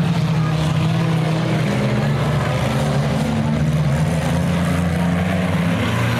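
Engines of several demolition derby cars running together on the arena, a steady loud drone whose pitch wavers slightly as the drivers work the throttles.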